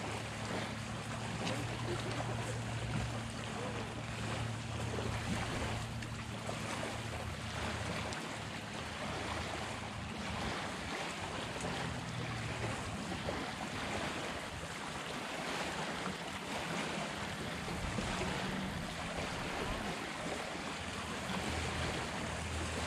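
Wind buffeting the microphone and small waves washing on a lakeshore, a steady rushing hiss. Under it a low steady hum is strong through the first half, fades about halfway through, and comes back near the end.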